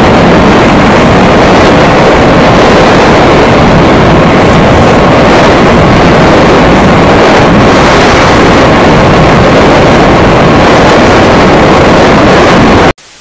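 Wind buffeting the camera's microphone on a moving motorcycle, a loud, steady rushing roar with the ride noise underneath, cutting off suddenly just before the end.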